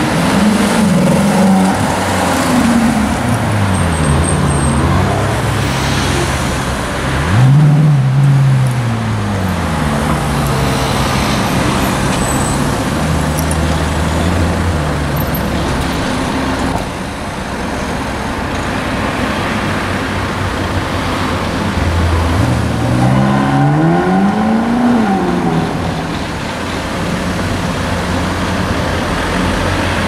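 Ferrari California's V8 running low in traffic, then revving up in rising sweeps that fall back again: a sharp climb about seven and a half seconds in and a longer rise and fall about twenty-three to twenty-five seconds in. Steady road traffic noise runs underneath.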